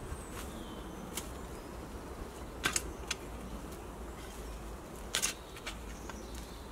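A handful of short, sharp clicks and snaps, a second or two apart, from twigs and brush being cleared off the woodland floor by hand, over a faint steady background.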